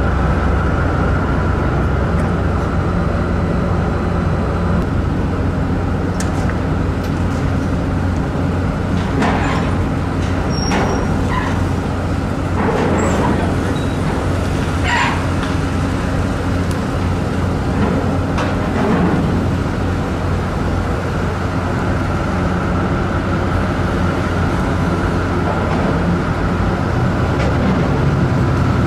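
Steady machinery drone of a car ferry heard on its open vehicle deck, with fixed low hums, as cars and a pickup drive across the deck. A few brief louder sounds stand out in the middle.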